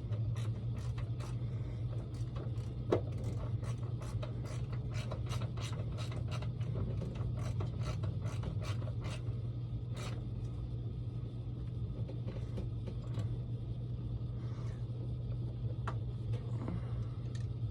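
Socket ratchet with an extension clicking in quick strokes as nuts are run onto the pinsetter bucket's mounting bolts, the clicks thinning out after about ten seconds, over a steady low hum.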